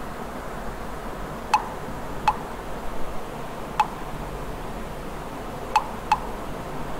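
Five sharp, brief clicks over a steady background hiss, the last two close together near the end.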